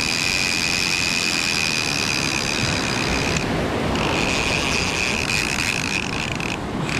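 Penn Fierce III 8000 spinning reel paying out line with a steady high whine as a shark takes the bait and runs with it. The whine stops briefly twice, about three and a half seconds in and near the end, as the run pauses. Surf and wind noise lies underneath.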